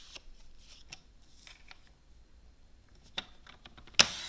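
Paper trimmer in use: soft handling of card on the trimmer and a click, then a short, loud cut about four seconds in as the sliding blade is run along the rail to trim the card's edge.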